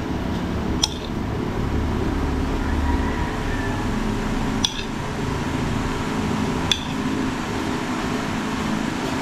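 A metal spoon clinks sharply against ceramic plates three times as sliced boiled egg is scooped and laid on a plate of noodles, over a steady background hum.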